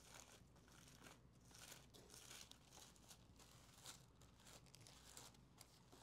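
Faint rustling and crinkling of thin Bible pages being flipped through, a quick run of short papery swishes.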